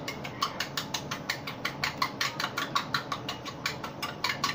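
Eggs being beaten in a bowl: a utensil clicks rapidly and evenly against the bowl's sides, about seven clicks a second.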